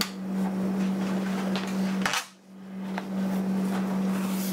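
Steady low-pitched mechanical hum with a noisy rush over it. About two seconds in a sharp click cuts it off briefly before it fades back in, and a fainter click follows a second later.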